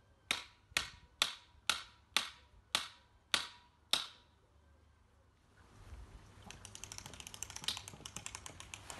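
Winding crank of a cantilever patio parasol being turned to wind in its newly replaced cord, its ratchet clicking about twice a second for the first four seconds. After a short pause the clicking comes back fast and continuous as the crank is turned quicker.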